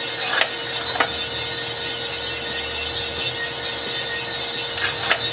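WK-300G drum coffee roaster running steadily, its drum turning and fan drawing air with a faint steady hum. A few sharp pops stand out, about half a second in, at one second and near the end: beans cracking during first crack.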